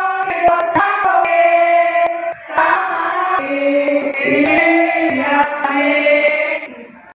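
A group of voices singing a slow church hymn together in long held notes, fading out near the end.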